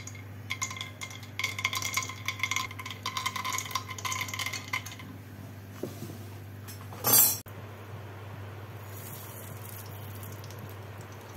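Raw peanuts dropped by hand into a stainless steel pan: a rapid patter of small clicks with a metallic ring, lasting about four seconds. About seven seconds in there is a single loud burst of noise that cuts off abruptly, over a steady low hum.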